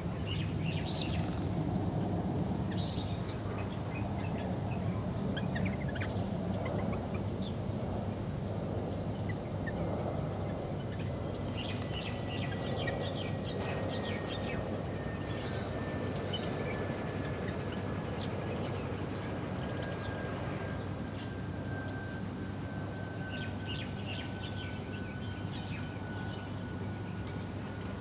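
Small birds chirping in short scattered bursts, house sparrows among them, over a steady low background rumble. Through the second half a faint long tone slowly falls in pitch.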